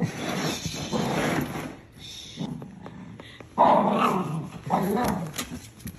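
A small dog growling in two main bursts, with quieter grumbles between: a grumbling protest as it is coaxed out of the suitcase it is hiding in.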